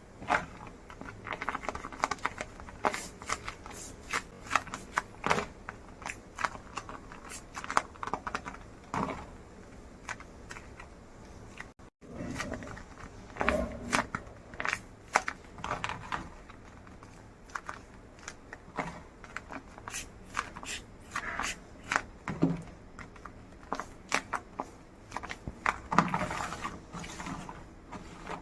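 Handmade paper-and-tape craft pieces being handled, giving irregular crinkles, rustles and light taps, with a brief break about twelve seconds in.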